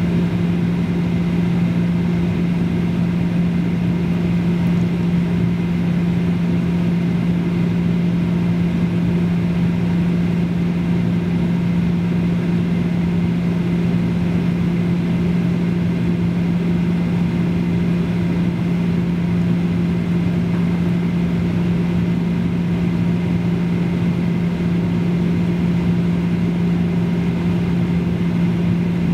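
Boeing 737-800 airliner heard from inside the cabin on approach: a steady drone of its CFM56-7B turbofan engines and airflow, with a strong, even low hum.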